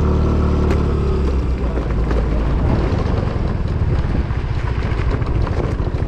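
Yamaha scooter engine idling steadily, then pulling away about a second in, its low running note turning into a rapid, uneven pulsing as the scooter moves off.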